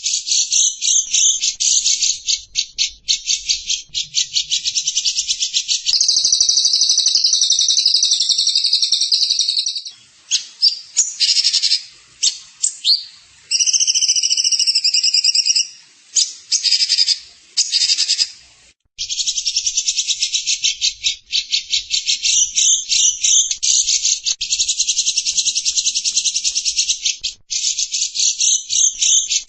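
A small songbird singing long runs of rapid, high-pitched trills with short breaks, and a few clearer whistled notes in the middle.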